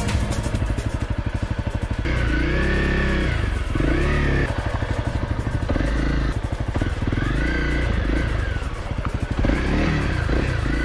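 Honda CRF250L's single-cylinder four-stroke engine on the move, putting along at low revs between several short rises and falls in revs as the throttle is opened and closed.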